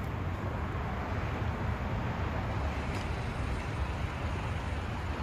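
Steady low rumble of vehicle noise.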